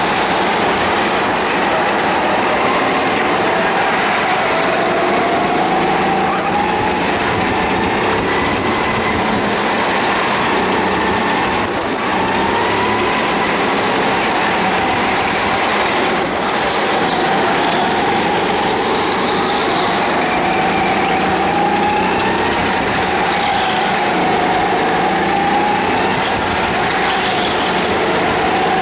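Go-kart engine heard from onboard, running hard, its pitch climbing and falling again every few seconds as the kart accelerates down the straights and slows for the corners.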